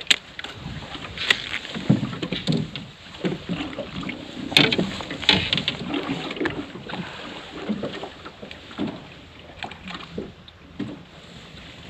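Water lapping against the hull of a small boat drifting at sea, with wind on the microphone and scattered knocks and clicks.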